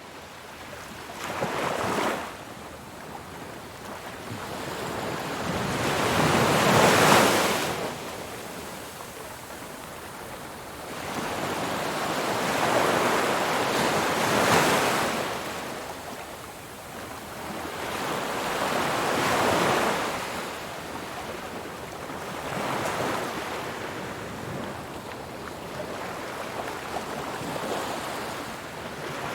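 Ocean waves breaking and washing ashore, each surge swelling up and dying away every few seconds, with the biggest wave about seven seconds in.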